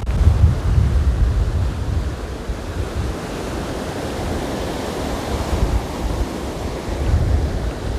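Stormy sea surf breaking and washing on the beach, swelling about halfway through. Strong wind buffets the microphone in gusts of low rumble near the start and again near the end.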